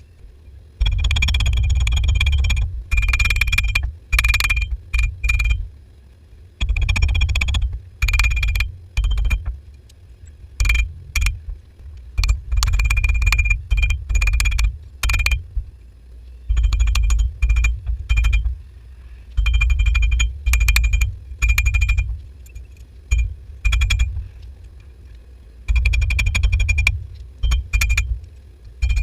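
Hammer blows on an anvil, forging a rebar knife blank: bursts of rapid strikes with a steady metallic ring and a heavy thud under each burst, broken by short pauses between bursts.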